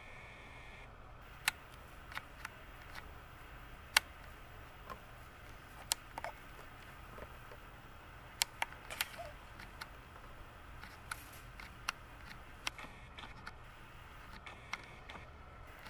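A camera's zoom motor whines briefly and stops about a second in. Then come scattered sharp clicks and taps of the camera being handled, over a faint steady low hum.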